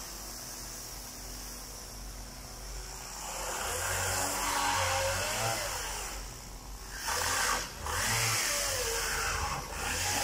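Chainsaw running at a low steady speed, then from about three seconds in revving up and down repeatedly as it cuts into wooden pallet crates for firewood.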